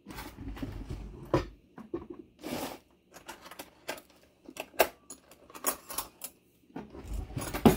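Irregular clinks, knocks and short scrapes of a knife and plate being handled while a rolled tortilla wrap is cut, with the loudest knock near the end.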